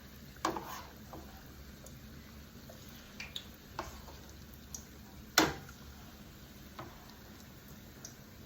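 Chicken nuggets being placed one at a time into a pan on the stove, with a faint steady bubbling of the cooking liquid under a handful of short clicks and knocks; the loudest knock comes just past halfway.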